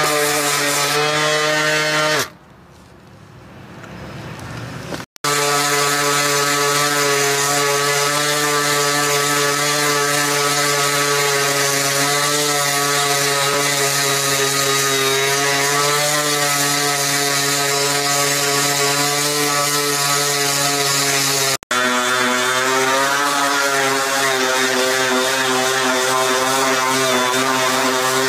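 DeWalt cordless brushless random orbital sander running steadily while sanding wood, a loud, even motor hum. It drops out about two seconds in and runs again from about five seconds.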